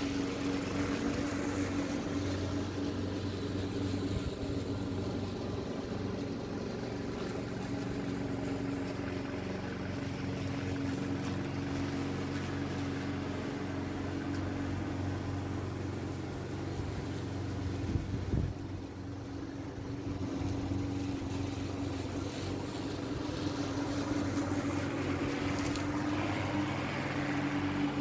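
Ruris RX333S lawn mower's Briggs & Stratton petrol engine running steadily under load while mowing grass, with a steady hum throughout. A brief knock about two-thirds of the way through.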